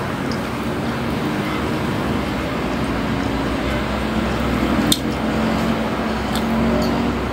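Steady background noise with a low hum, and one sharp click about five seconds in.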